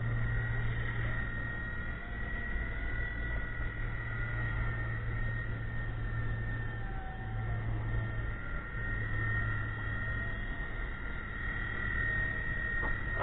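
WLtoys V911-series micro electric RC helicopter in flight: a steady high-pitched motor whine over a low rotor hum.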